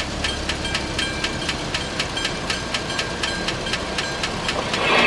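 Railway level-crossing bell striking rapidly and evenly, about four strikes a second, over a low rumble. A train's noise sets in loudly just before the end.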